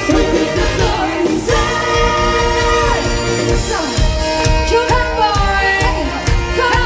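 Live brass band music with singing, loud and steady; a regular drum beat comes in about four seconds in.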